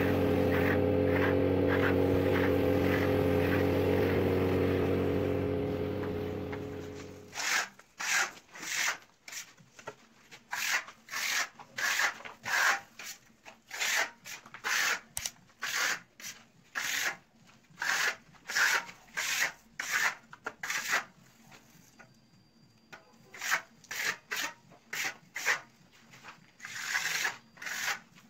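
Repeated strokes of a steel spatula trowel scraping across freshly sprayed travertine-effect plaster on a wall, about one to two strokes a second with a short pause near the end. Before the strokes, a steady machine hum fades out about six or seven seconds in.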